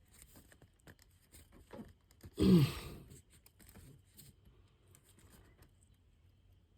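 Faint small clicks and scrapes of hand work on engine parts, with one short grunt from a man about two and a half seconds in, falling in pitch.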